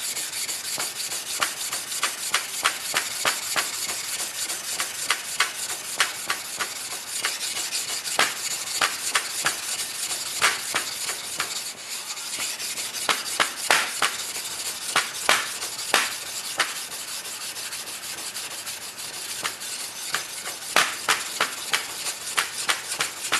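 A 2000-grit whetstone being lapped flat: a steady gritty scraping of stone rubbed back and forth, with a sharp click on each stroke, two to three a second. The stone is being ground down to remove a dented low spot.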